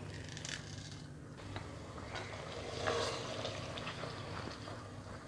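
A plastic ladle stirring cooked mutton in an aluminium pressure cooker: faint scrapes and clicks over a low steady hum, with a soft swell of stirring noise about three seconds in.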